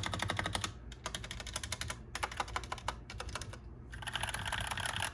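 Typing on a Cooler Master CK530 V2 mechanical keyboard with red linear switches: rapid key strikes in runs with a few brief pauses, blurring into a denser clatter near the end.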